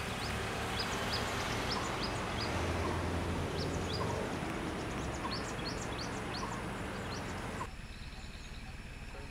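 Outdoor ambience of many short, high, rising bird chirps repeating over a steady background hiss and low hum. Near the end the whole sound drops suddenly to a quieter background.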